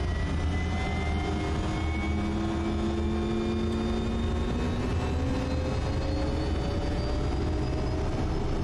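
Quest Kodiak's PT6A turboprop engine running with a steady low drone, its whine slowly rising in pitch.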